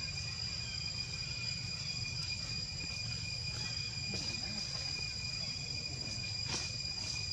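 Steady, high-pitched insect drone over a low rumble of background noise, with one short sharp tick about six and a half seconds in.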